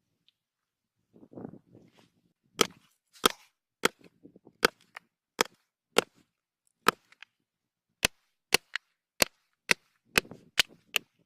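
Wood being chopped: about fourteen sharp single strikes, one or two a second at uneven spacing, beginning a couple of seconds in. Softer rustling of handling comes before and near the end.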